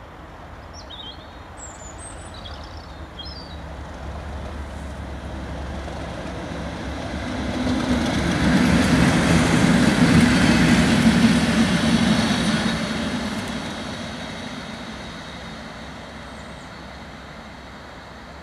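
Class 37 diesel locomotive 37407, with its English Electric V12 engine, hauling Class 90 electric locomotive 90014 past at speed. The engine and wheel noise build as it approaches, are loudest about 8 to 12 seconds in as it passes close, then fade as it runs away.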